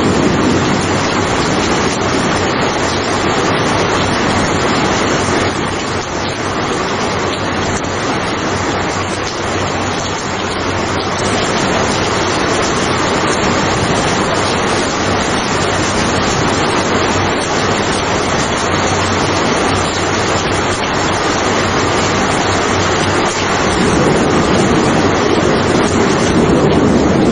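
Steady heavy rain, a dense even hiss with a deeper rumble underneath that grows a little stronger near the end.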